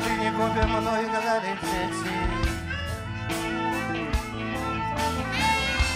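Live rock band playing an instrumental passage: electric guitar, upright double bass and drums, with a trumpet holding long notes over them.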